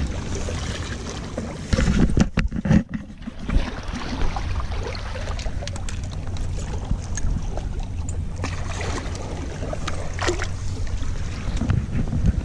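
Small waves lapping and splashing against shoreline rocks over a steady low wind rumble on the microphone, with a few knocks and clatters about two to three seconds in.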